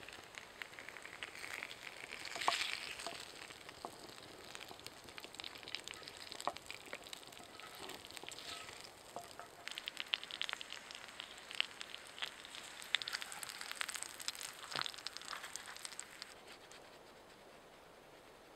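Meat and rye bread frying in a black pan set on a burning Swedish firetorch log: a steady sizzle with many sharp crackles and pops. It dies away near the end.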